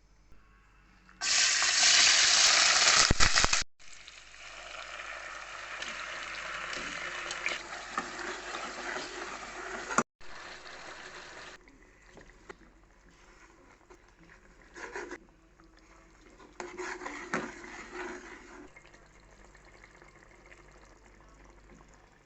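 Food sizzling in hot oil in a pan. The sizzle starts loudly about a second in, then settles to a steadier frying hiss, and later gives way to quieter stirring with a few clinks of a utensil against the pan.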